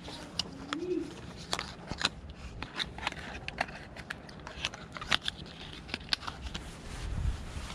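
Small boxed eyeshadow compact handled close to the microphone: irregular sharp clicks and crackles of the packaging as it is turned over in the hands.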